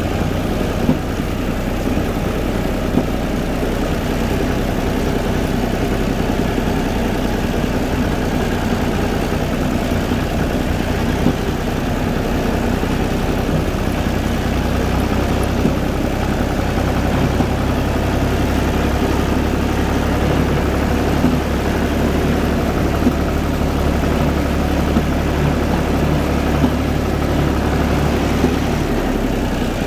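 UTB 445 tractor's diesel engine running steadily, its low engine note getting a little stronger about halfway through.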